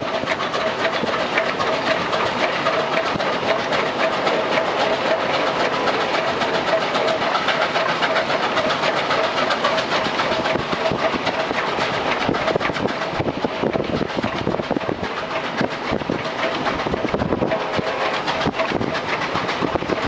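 Steam locomotive hauling a passenger train at speed, working hard: a loud, steady, continuous rush of exhaust and running noise.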